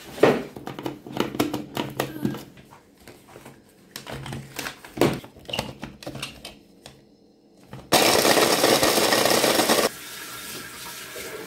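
Clicks and knocks as the chopper bowl and lid are handled, then about eight seconds in a small electric food chopper runs for about two seconds, grinding biscuits into crumbs.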